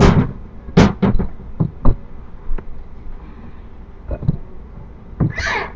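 Hands mixing and kneading sticky pizza dough in a glass mixing bowl, with irregular knocks and thumps: five in the first two seconds and one more about four seconds in.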